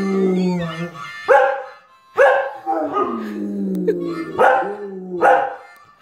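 Dogs barking and howling in protest at a harmonica ringtone: about four loud sharp barks over long held harmonica-like notes and wavering howls.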